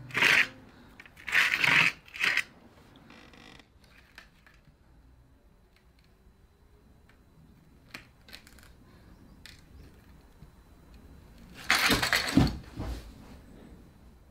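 A person moving about and handling things: three short scuffing bursts in the first couple of seconds, a few faint clicks, then a louder cluster of scuffs with a dull thump about twelve seconds in.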